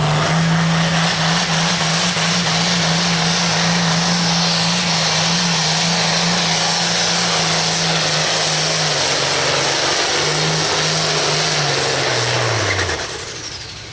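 International Harvester 1066 pulling tractor's diesel engine running loud at full throttle as it drags the weight sled down the track, with a steady engine note. Near the end the note falls in pitch and drops away as the pull ends.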